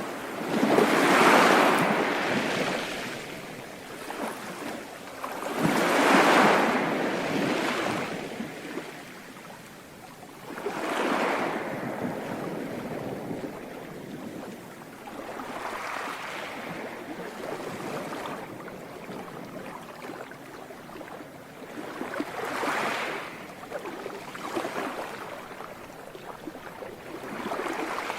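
Sea waves breaking and washing ashore, a surge every five seconds or so over a constant wash of surf, the first two the loudest.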